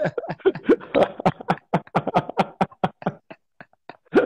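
Men laughing hard, a rapid run of short, breathy laugh pulses that thins out over the last second or two.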